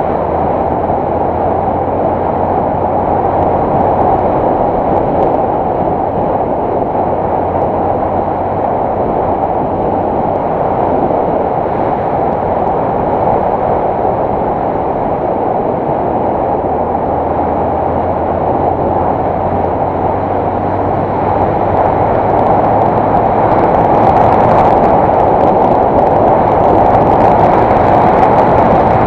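Yamaha M-Slaz's 155 cc single-cylinder engine running steadily at cruising speed, mixed with wind rushing over the microphone of a rider-mounted camera. The sound grows a little louder in the last few seconds.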